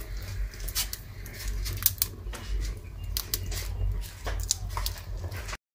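Fire of dry twigs and straw burning in a hearth, crackling and snapping irregularly over a low rumble, cutting off abruptly near the end.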